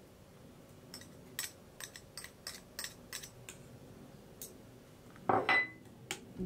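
Light clicks and taps of kitchen utensils, about ten over a few seconds, as cream is added to a stainless steel mixing bowl of mashed pumpkin. About five seconds in comes a louder knock with a short metallic ring, a wire whisk striking the steel bowl, and then one last click.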